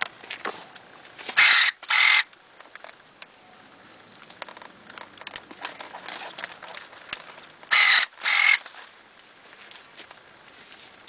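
Electric pruning shear making two cuts, each heard as a pair of short whirrs from its motor-driven blade, about a second and a half in and again about eight seconds in, with faint clicking and rustling of handled dragon fruit stems between.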